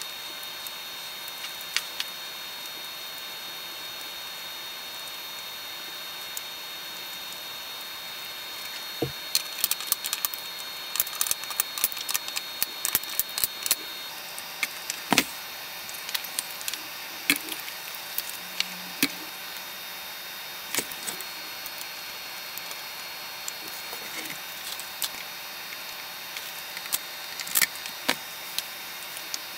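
Small hand tools clicking and tapping irregularly on a circuit board during capacitor replacement, over a steady background hiss. The clicks start about a third of the way in, and one sharp snap stands out near the middle.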